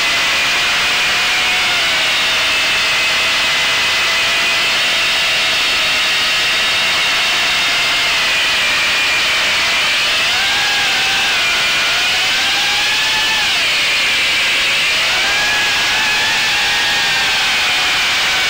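Onboard sound of a radio-controlled model airplane in flight: the motor and propeller drone steadily under rushing wind noise. The pitch rises about ten seconds in, drops back, then rises again a couple of seconds later as the throttle changes.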